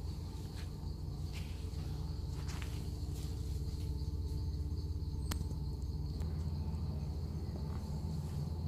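Steady high insect chirring, under a low rumble on the microphone, with a few short sharp snaps, the sharpest about five seconds in.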